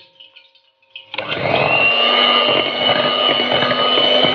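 Electric hand mixer switched on about a second in, its motor whine rising quickly to a steady pitch as the beaters whip a ground moong and mash (urad) dal batter to work air into it until it turns fluffy.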